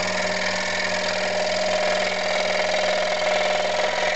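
Scroll saw running steadily at about three-quarter blade speed, its blade cutting through a thin piece of wood: a constant hum with a fast chatter of the blade's up-and-down strokes.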